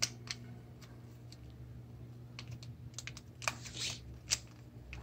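A LEGO minifigure blind bag's plastic wrapper being handled and torn open by hand, with a scatter of small crinkles and crackles that come more thickly about halfway through and again near the end.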